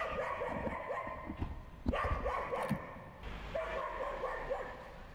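A dog whining and yipping in several stretches while it plays at a cat.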